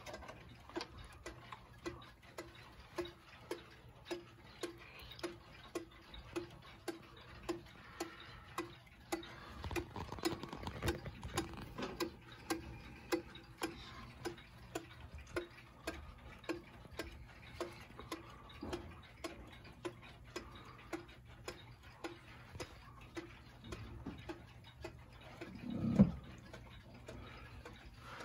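The battery movement of a wall clock, which has a ticking mechanism, ticks steadily, somewhat faster than once a second. A single low thump comes near the end.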